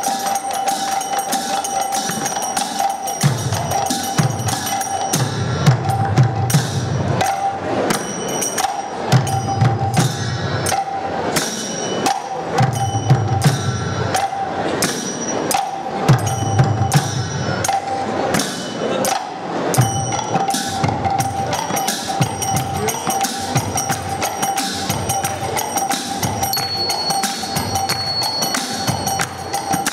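An ensemble of mridangas (two-headed Indian barrel drums) playing fast interlocking rhythms, with repeated phrases of deep bass-head strokes through the first half. Kartal hand cymbals and whompers ring steadily over the drumming.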